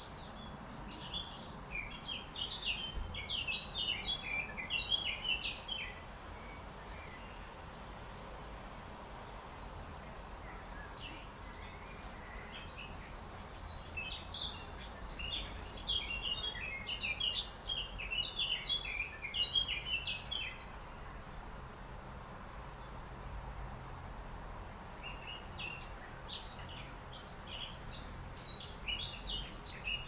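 Songbird singing in three bouts of rapid, high twittering phrases, with pauses between them, over a steady low background rumble.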